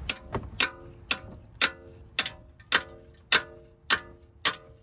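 A 10-pound hammer striking a half-inch-drive breaker bar again and again to shock loose a very tight brake caliper bracket bolt: about nine sharp metallic clanks, roughly two a second, each ringing briefly.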